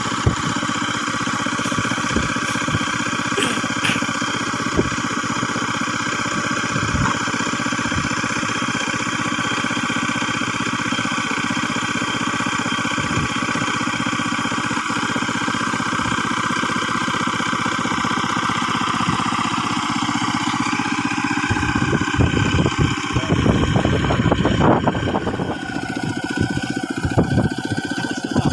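Small engine of an ISEKI PC4 rice transplanter running steadily. About three quarters of the way through, a rougher, irregular low rumble joins in for a few seconds.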